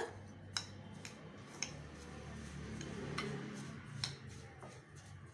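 Steel spoon stirring damp semolina in a glass bowl: a few faint, irregular clicks as the spoon taps the glass, with a soft rustle of the grains between them.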